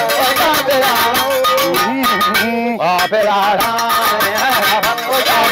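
Northern Ivorian balafon music: a voice singing with a wavering, ornamented pitch over quick, busy percussive strikes and shaken rattles.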